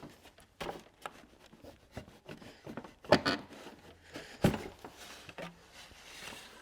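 Knocks and clicks of a massage chair's parts being handled and worked loose during disassembly: three sharper knocks spread through, with lighter clicks between.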